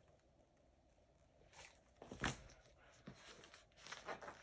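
Faint handling of a paperback picture book's pages: a few soft paper rustles and one sharper flap a little past two seconds in as a page is turned.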